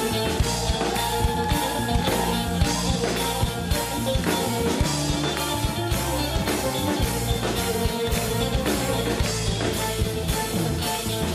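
Instrumental rock music: a drum kit keeps a steady beat under guitar.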